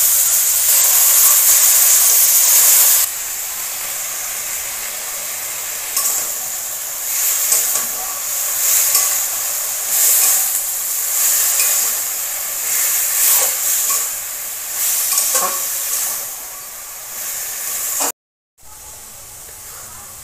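Boiled taro greens (kochu shaak) hitting hot oil and spices in a metal kadai: a loud sizzle for about three seconds, then a quieter steady sizzle with a spatula stirring and scraping in strokes about once a second. A brief silent gap near the end, then a softer sizzle.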